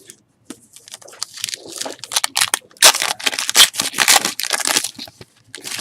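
Crackling and crinkling of a trading-card pack's foil wrapper as it is torn open and crumpled by hand, loudest about two to five seconds in.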